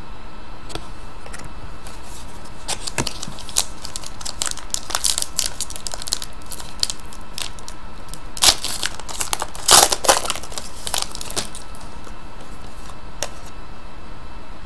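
Foil trading-card pack wrapper crinkling and tearing as it is ripped open by hand, in scattered crackles with the loudest rips past the middle.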